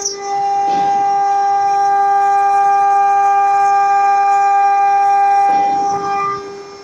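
CNC router spindle running with a steady high-pitched whine while cutting sheet material. The whine drops sharply in level about six seconds in, and its upper tones stop.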